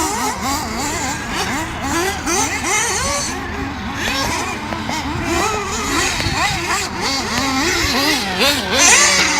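Small engines of several radio-controlled buggies and trucks revving up and down over and over, their overlapping whines rising and falling in pitch.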